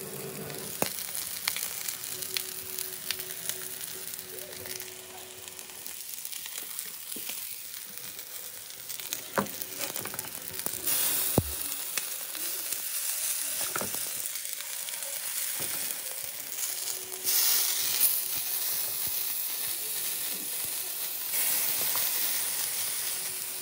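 Tortillas topped with cheese and meat frying on a hot flat griddle, a steady sizzle that swells louder several times as green salsa is ladled onto them. A few light clicks of a utensil against the griddle.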